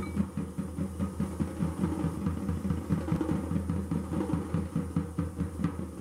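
Fast drum beat with the jingling of lezims, the Maharashtrian jingle instrument of a wooden handle and small metal discs, keeping a quick steady rhythm for a lezim dance; it fades out near the end.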